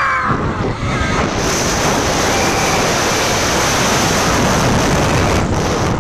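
Wind rushing over the microphone as a launched roller coaster train races along its track at speed, a loud, steady roar of air noise.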